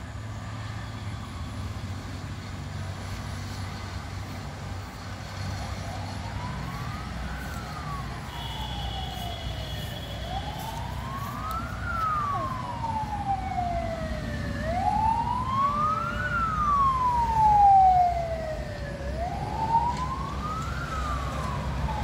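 Emergency vehicle siren wailing, sliding slowly up and down about every four to five seconds. It starts about six seconds in and grows louder, over a low rumble of road traffic.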